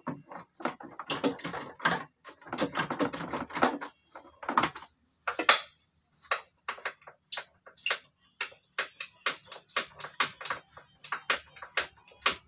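Ratchet wrench clicking as a bolt on the radiator mounting of a Toyota Kijang is worked loose. Dense runs of clicks come for the first few seconds, then single clicks at about three a second.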